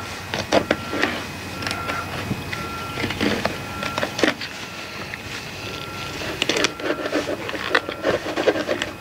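Filleting knife slicing and scraping along a large red emperor's backbone as the fillet is peeled back, with irregular clicks and scrapes of the blade on bone and the cutting board. A faint high tone comes and goes in the background.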